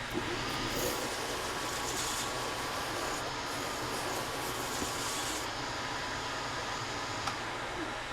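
A workshop machine running steadily with a low hum, a higher hiss coming and going over the first five seconds, and a few light clicks.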